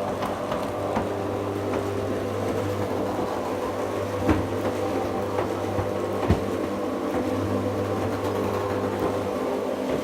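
Electric garage door motor running with a steady hum, with two short sharp knocks about four and six seconds in.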